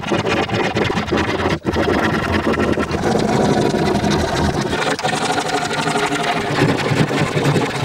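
Ryoba Japanese pull saw cutting through a wooden panel clamped upright in a vise, a fast unbroken run of sawing strokes with a brief break about one and a half seconds in. The blade is one its owner wants to replace.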